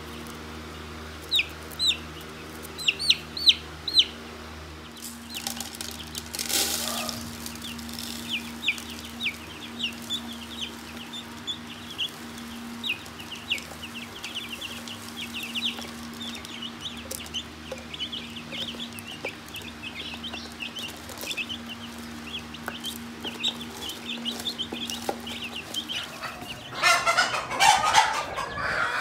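Broiler chicks peeping: a few loud single peeps in the first few seconds, then many chicks peeping together in a dense chorus, over a steady low hum. Near the end a louder, busier burst of sound takes over.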